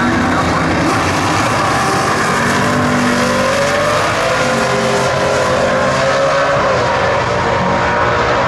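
Two vintage drag cars launching side by side and accelerating hard down the drag strip, engines at full throttle. The engine pitch climbs, drops briefly about two-thirds of the way through, then climbs again.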